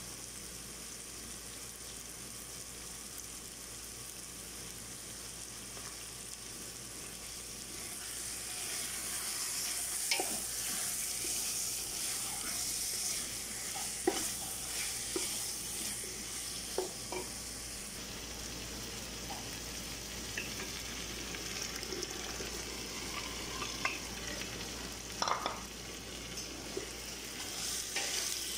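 Chicken pieces and tomato paste frying in oil in a stainless steel pot: a steady sizzle that grows louder about eight seconds in. A wooden spoon stirs them, with scattered knocks and scrapes against the pot.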